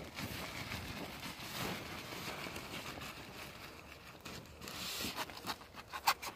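White plastic sheeting being handled and rustling, with scuffing in loose soil, and a few sharp clicks about six seconds in.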